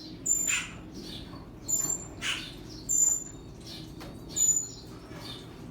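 Birds chirping: short, very high whistled notes repeating about every second and a half, with louder calls that sweep down in pitch between them.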